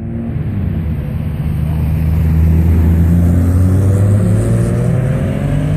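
Car engine accelerating as the car drives past, its pitch climbing steadily for several seconds and loudest about halfway through.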